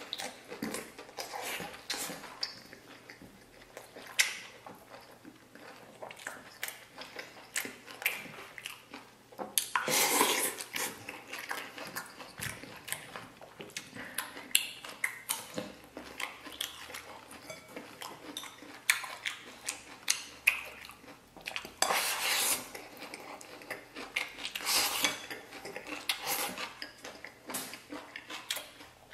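Close-up eating sounds: chewing stewed lamb rib meat and rice, with chopsticks clicking against the bowls and plate. There are louder spells of noisy eating about a third of the way in and again past two thirds.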